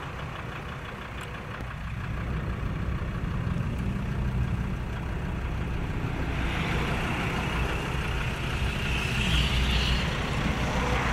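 Engine and road noise heard from inside a moving vehicle: a steady low drone, with a hiss of wind and tyres that grows louder about six seconds in.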